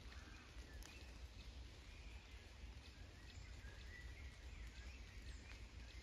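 Faint forest ambience: distant birds singing in short, thin high phrases, with a few scattered raindrop ticks and a low steady rumble underneath.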